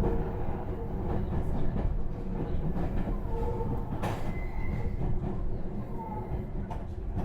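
Inside a Meitetsu 3700-series electric train under way: steady wheel-and-rail rumble with short steady tones from its Toyo Denki GTO VVVF inverter and traction motors, which is unusually loud for a passenger car. There is a sharp click about four seconds in.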